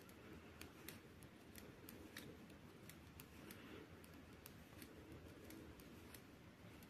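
Metal circular knitting needle tips clicking softly against each other as stitches are knitted, small irregular clicks about two a second.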